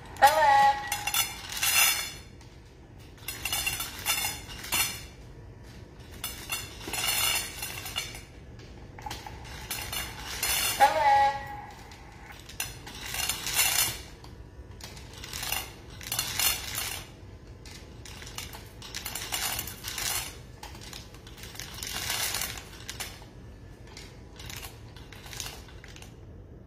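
Dual automatic pet feeder dispensing dry kibble into two stainless steel bowls, the pieces rattling and clinking against the metal in short bursts. Two short tones falling in pitch come near the start and about eleven seconds in.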